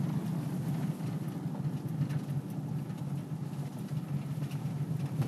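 Car driving slowly on a dirt road, heard from inside the cabin: a steady low engine hum under a haze of tyre and road noise, with a few faint knocks.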